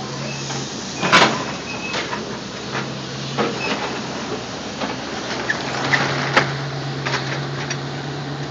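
Caterpillar excavator's diesel engine running steadily while scrap metal clanks and bangs as it is dropped into a steel dump-truck box. A series of sharp metal knocks, the loudest about a second in.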